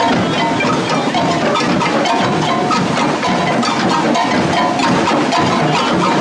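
Percussion band playing continuously, dense drum and wood-block hits with ringing bell-like tones over them.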